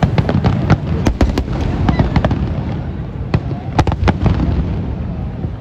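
Fireworks display: many sharp cracks in quick irregular succession over a continuous low rumble of booming shell bursts.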